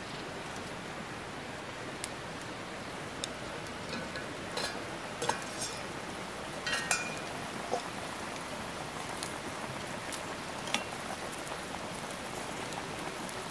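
Stainless steel pot lid lifted off a boiling pot with a few sharp metal clinks and knocks, over a steady rain-like hiss.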